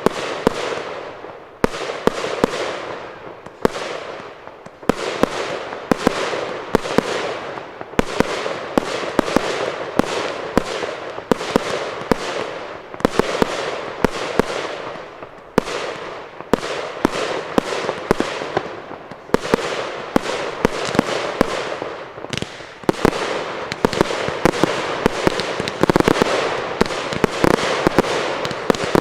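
Aerial fireworks bursting in rapid succession, a dense run of sharp bangs over continuous crackle, with no break.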